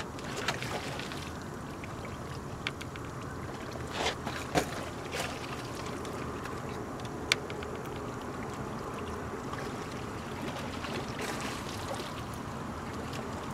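Steady rushing noise of moving water, with a few short sharp clicks and knocks scattered through it.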